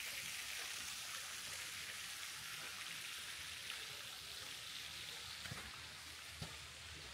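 Steady hiss of running water from a stream or small falls, slowly fading, with a few faint knocks near the end.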